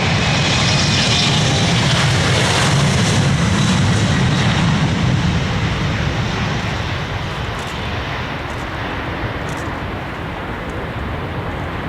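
Airliner engines as a plane passes close by, with a high whine over the rush. The sound is loudest for the first few seconds and fades away from about six seconds in.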